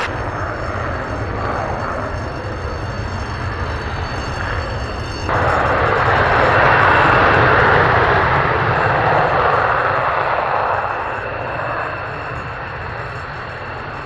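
Jet engines of taxiing fighter jets running steadily, a rushing noise with a thin high whine on top. About five seconds in the sound jumps abruptly louder as a closer jet passes, then eases off after about eleven seconds.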